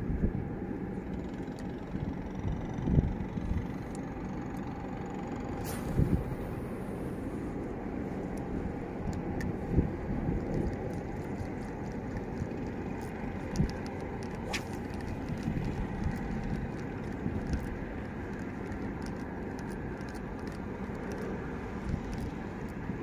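Wind buffeting the microphone: a steady low rumble that swells in gusts now and then, with scattered light clicks over it.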